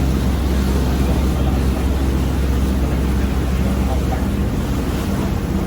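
An engine running steadily with a loud low hum, under rushing wind and water noise.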